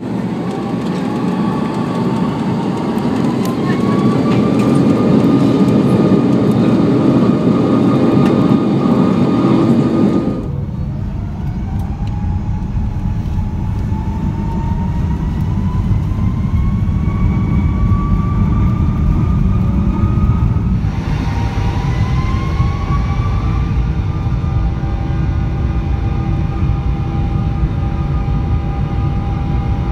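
Rolls-Royce Trent turbofan engines spooling up, three in turn: a Trent 500, then a Trent 700, then a Trent 800. Each is a steady low rumble with a whine that climbs in pitch as the engine winds up. The sound cuts abruptly from one engine to the next about ten and twenty-one seconds in.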